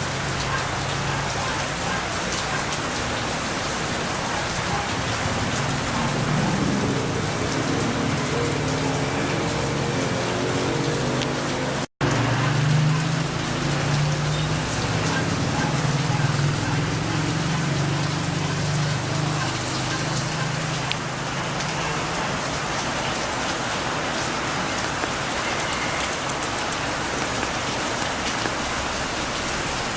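Steady rain falling, an even hiss of drops, with a low steady hum underneath. The sound cuts out for an instant about twelve seconds in.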